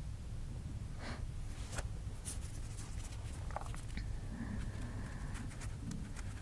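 Scattered light clicks and rustles of small objects being handled, over a steady low hum; a faint thin tone sounds briefly near the middle.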